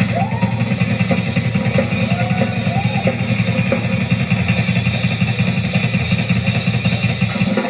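Live rock-style band music driven by busy, fast drumming on a Yamaha drum kit with Zildjian cymbals, with a few notes sliding up and down in pitch in the first few seconds. Recorded off a TV's speaker.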